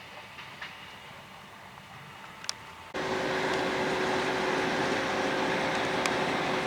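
Faint railway background with a couple of sharp clicks, then about three seconds in, abruptly, the loud steady running of a BR232 'Ludmila' diesel locomotive, an even mechanical noise with a steady hum under it.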